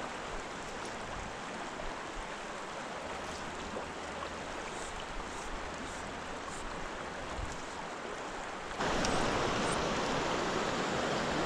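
Steady rush of a creek's current flowing over rocks. About nine seconds in it jumps suddenly louder and fuller.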